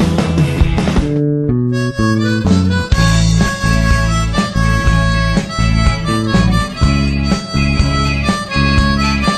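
Instrumental rock music. A loud full-band passage ends about a second in, and then a harmonica plays held notes over guitar and bass.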